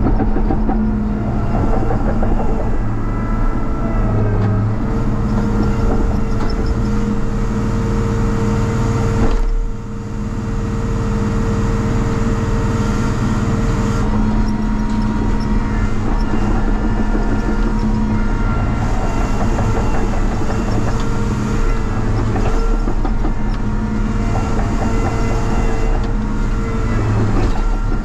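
Cat 953C track loader's diesel engine running steadily at working revs, with a brief drop in level about ten seconds in before it picks back up. It is running with a broken muffler.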